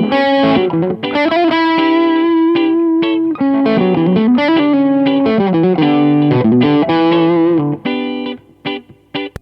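2023 Gibson ES-335 semi-hollow electric guitar playing a single-note lead line through an amp. The line has sustained notes and string bends, then turns to short, clipped notes near the end.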